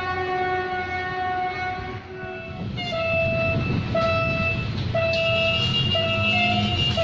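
A diesel locomotive horn holds one steady chord that cuts off about two seconds in. Then a second locomotive horn with a different pitch sounds in a string of short blasts, about one a second, over street and traffic noise.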